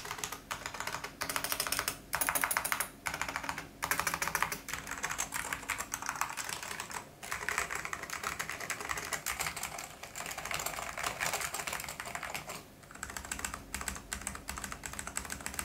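Fast typing on an SGI Granite mechanical keyboard with linearized orange Alps switches and thick PBT keycaps: a dense run of key clacks in bursts with short pauses between them.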